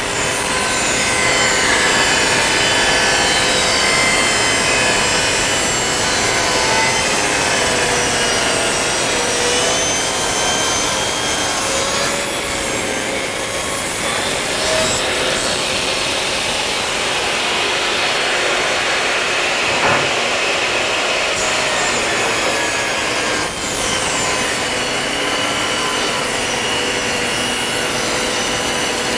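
Portable jobsite table saw running and ripping a bevel along the long edge of solid-wood boards: the steady whine of the blade mixed with the rasp of the cut.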